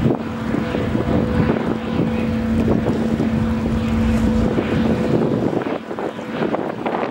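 The high-speed catamaran ferry Condor Rapide, an 86 m Incat wave-piercer, passing with a steady engine hum that fades out about five and a half seconds in. Wind buffets the microphone throughout.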